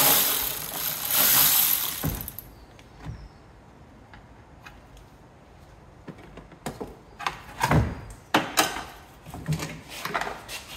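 Power tool running steadily on the gearbox and starter motor bolts, stopping about two seconds in. After that come scattered sharp clicks and knocks of hand tools and metal parts, busiest near the end.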